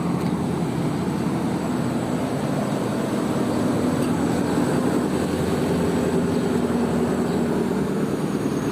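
An engine running steadily, a low even hum with a few steady tones, growing slightly louder toward the end.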